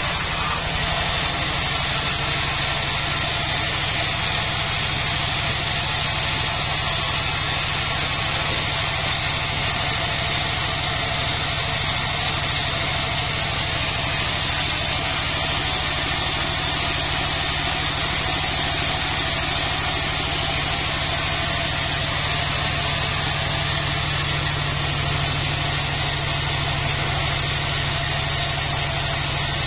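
Vertical band sawmill running steadily while a long mahogany log is fed through its blade: an even low hum with a constant hiss over it.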